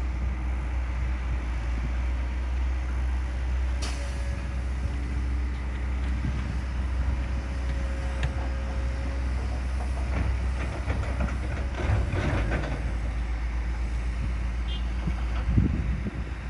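Heavy diesel earthmoving machinery running with a steady low rumble. There are occasional metallic clanks, and louder knocks near the end.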